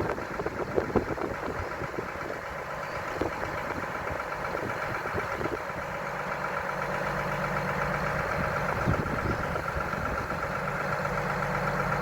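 Drilling rig engine idling steadily, with a few knocks in the first second and a deeper hum setting in about halfway through.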